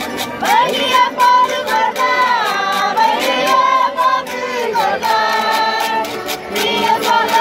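Several women's voices singing a folk song together, with a button accordion playing along and a steady clicking beat of about three ticks a second.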